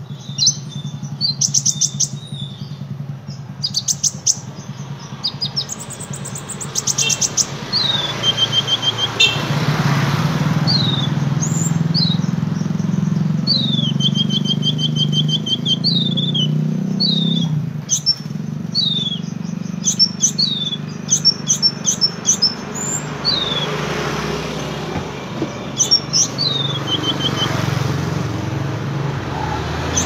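A caged sunbird singing a busy run of short, high chirps, quick trills and repeated falling notes. Steady street-traffic hum runs underneath.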